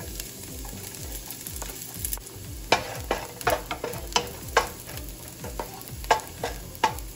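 Minced garlic sizzling in a little olive oil in a nonstick pot while a wooden spoon stirs it. From about three seconds in come a dozen or so irregular sharp taps and scrapes of the spoon against the pan.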